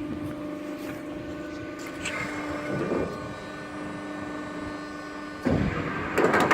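Hydraulic guillotine shear running an air cut with no plate: the hydraulic pump unit hums steadily while the blade cycles. The sound swells about two to three seconds in, then turns abruptly louder about five and a half seconds in as the stroke works under hydraulic pressure.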